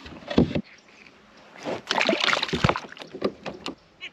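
A knock against the kayak, then about a second of splashing and sloshing as a white bass is dropped back into the river beside the kayak, followed by a few light clicks.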